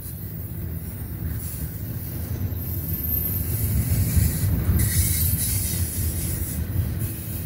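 Double-stack intermodal well cars rolling past with a steady low rumble of wheels on rail. A brief high-pitched squeal comes about five seconds in.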